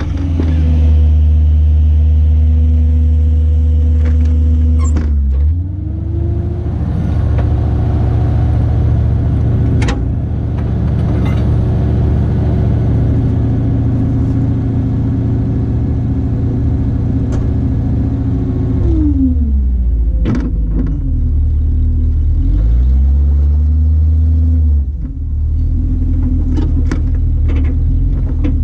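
Truck engine under load during a winch recovery of a pickup stuck in sand. Its revs rise about five seconds in and hold steady for some thirteen seconds, drop back, then rise and fall again twice. A few sharp knocks are heard along the way.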